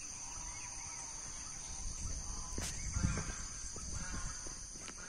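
Birds calling around a pond over a steady high-pitched insect drone, with a dull bump about three seconds in.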